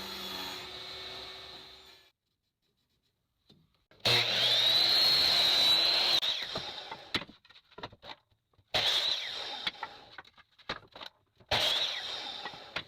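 Power saw cutting scrap wood for cabinet parts in several separate bursts. Each cut starts abruptly with a high whine and dies away, and the cut about four seconds in is the loudest.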